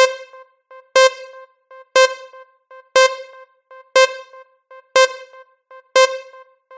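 Synthesized countdown sound effect: a bright, pitched electronic tone strikes once a second and rings briefly, seven beats in all, with softer short ticks between the beats.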